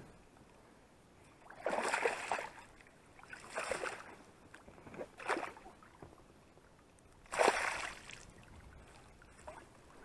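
Four short water splashes a second or two apart as a hooked fish thrashes at the surface beside an inflatable boat and is scooped up in a landing net.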